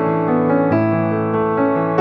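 Background piano music: held notes and chords changing about once or twice a second.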